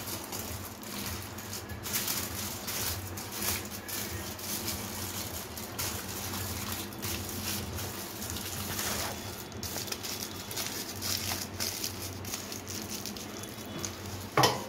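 Aluminium foil crinkling and rustling as it is folded by hand around a roll, over a low steady hum. A couple of sharp, louder knocks come near the end.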